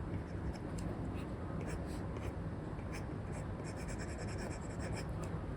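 Apple Pencil stylus strokes scratching and tapping on an iPad's paper-like screen film, with a quick run of short strokes in the second half. Steady white-noise hiss runs underneath.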